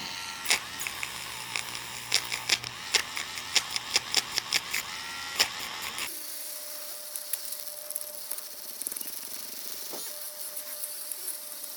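Light clicks and taps of a clear plastic model part being handled and worked for about six seconds, then, after an abrupt change, the faint steady whine of a small variable-speed rotary polishing tool with a light hiss.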